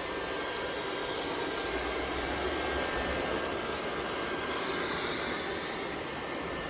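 Robot vacuum cleaner running: its suction fan gives a steady whirring hiss with a faint high tone.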